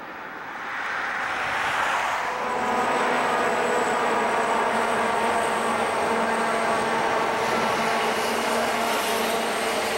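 Train cars rolling past, quieter at first. About two seconds in, the sound turns into the louder steady drone of Southern Pacific diesel-electric locomotives passing close by, with a high engine whine over the rolling noise.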